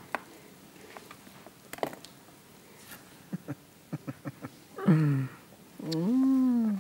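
Scattered light clicks and taps of kitchen utensils and food being handled on a worktop, then two hummed vocal sounds near the end: a short falling 'mm' and a longer 'mm' that rises and then falls.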